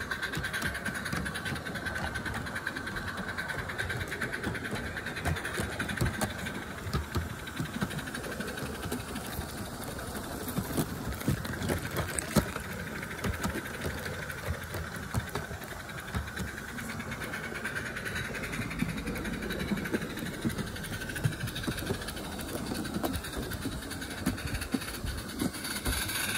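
Roundhouse Jennie miniature live-steam locomotive running with a steady hiss of steam and rapid exhaust chuffing, heard from the wagon it hauls. Its wheels and the wagon's wheels click and rattle continuously over the garden-railway track.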